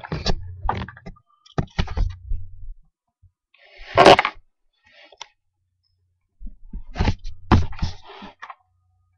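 Handling noise from the camera being moved: scattered clicks and knocks, with a loud rubbing rush about four seconds in.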